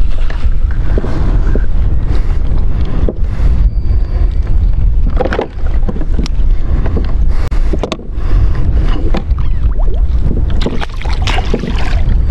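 Wind buffeting the microphone in a steady low rumble, with scattered clicks and knocks as a plastic fish clip and its cord are handled on the kayak; the knocks come thicker near the end.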